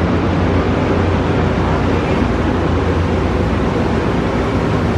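Amtrak passenger train running, heard from aboard: a loud, steady, even rumble of wheels and car noise.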